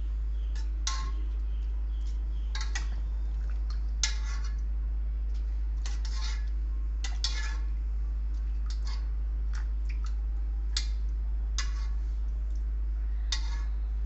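Scattered light clinks and taps of a steel bowl and a metal pot as bare hands pick boiled chicken necks out of broth and drop them among torn roti, about a dozen over the stretch, over a steady low hum.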